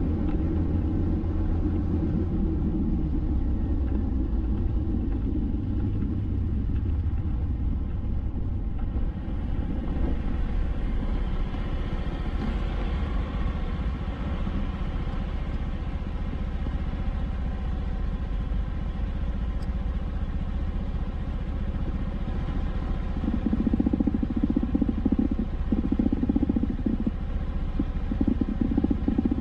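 Motor vehicle travelling along a road: a steady low rumble of engine and road noise. In the last several seconds it grows louder and comes in pulses.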